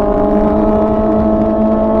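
Kawasaki ZX-4RR's inline-four engine running steadily under light throttle, its pitch rising slowly as the bike accelerates.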